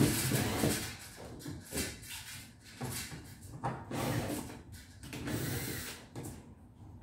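A cabinet door being handled while a bar handle is fitted to it: a sharp knock at the start, then scattered softer knocks, clicks and rubbing.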